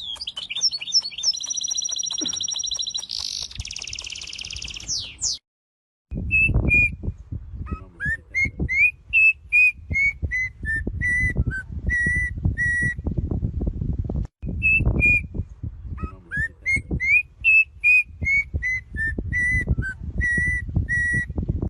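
A songbird singing: high fast chirps and trills, a brief dropout, then a phrase of clear whistled notes at about two a second, some sliding upward. The phrase plays twice over low rumbling background noise.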